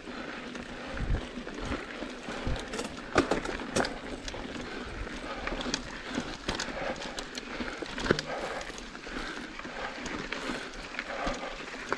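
Mountain bike rolling over a dirt and rock singletrack: a steady rush of tyre noise with frequent sharp knocks and rattles from the bike as it hits roots and rocks.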